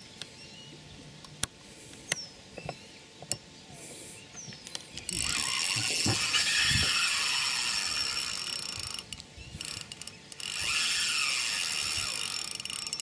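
Spinning reel on a feeder rod ratcheting while a large carp is played: scattered clicks at first, then from about five seconds in a loud continuous ratcheting buzz that breaks off briefly near the ten-second mark and starts again.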